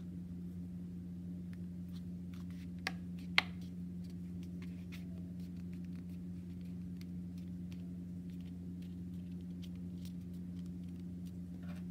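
Hands pressing and smoothing a folded paper strip on a tabletop: faint paper rustles and light ticks, with two sharp clicks about three seconds in, over a steady low hum.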